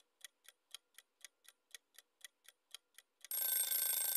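Countdown-timer sound effect: a clock-like tick about four times a second, then about three seconds in a louder, harsh, steady hissing tone lasting about a second, the timer's time-up signal.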